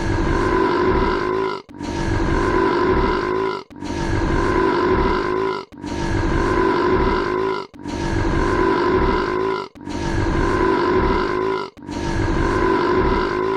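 A long, rough belch repeated as an identical loop about every two seconds, with a brief break between repeats, roughly seven times over.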